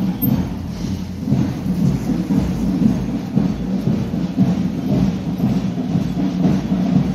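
Drums of a marching band accompanying a street procession, heard as a loud, continuous low rumble of drumbeats.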